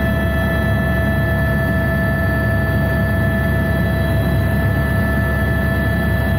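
Helicopter in flight heard from inside the passenger cabin: a steady low rumble of rotor and engine with several steady high whining tones over it.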